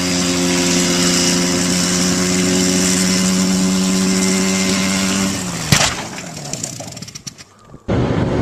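Ultralight helicopter's small engine running steadily at high revs, then a sharp bang a little over five seconds in, after which the engine winds down with scattered rattling and clicking. Near the end a different steady engine noise cuts in.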